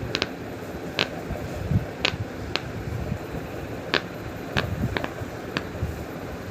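Silicone pop-it fidget toy bubbles being pressed, giving about eight sharp irregular pops over a steady background hiss.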